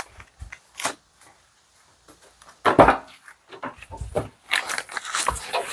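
Footsteps and scattered knocks and thuds, the loudest thud about three seconds in, with rustling and handling noise near the end.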